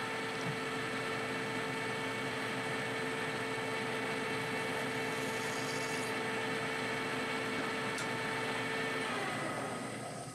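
Metal lathe running steadily with a constant whine while turning a brass stud. About nine seconds in it is switched off, and the whine drops in pitch and fades as the spindle spins down.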